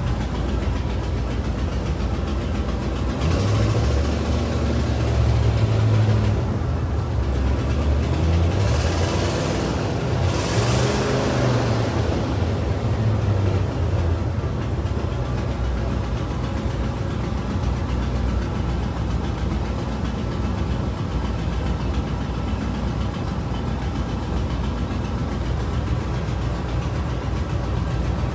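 1976 Cadillac Eldorado's 500 cubic-inch V8 running at idle, heard from inside the cabin, its note rising and falling a few times in the first half before settling steady. It has a raspy edge from an exhaust manifold leak, which the owner says has it sounding like a race car.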